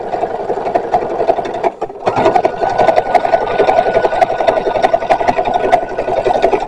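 Electric sewing machine stitching a boning channel in a corset, a fast, even run of needle strokes. It slackens briefly about two seconds in, then runs on and stops at the end.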